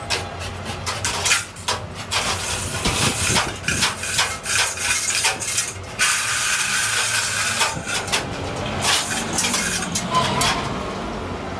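Metal knocks and clanks from workshop repair of a truck rear axle housing, with a steady hissing stretch lasting a couple of seconds past the middle.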